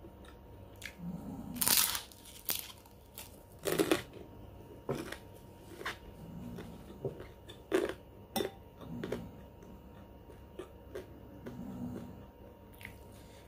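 Close-up eating sounds: a crisp white kerupuk cracker being snapped and crunched in the mouth, with soft chewing between the crunches. A few sharp clicks come from a metal spoon in a ceramic bowl of rawon soup.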